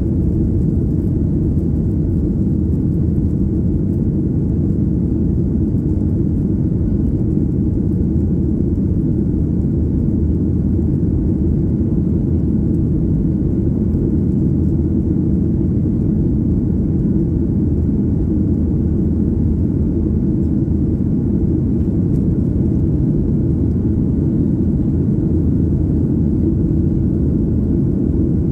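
Steady low rumble of a Boeing 737's jet engines and airflow, heard inside the passenger cabin as the airliner climbs out after takeoff.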